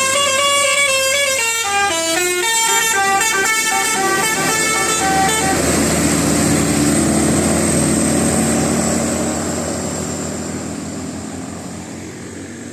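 Tour bus's multi-tone 'telolet' musical horn playing a melody, several notes stepping up and down, until about five and a half seconds in. Then the bus's engine and road noise, fading away near the end.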